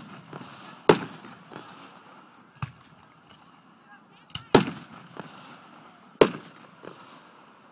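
Aerial firework shells bursting overhead. There are three loud booms, about a second in, about four and a half seconds in and just past six seconds, with a smaller bang and a few lighter pops between them. Each bang echoes briefly.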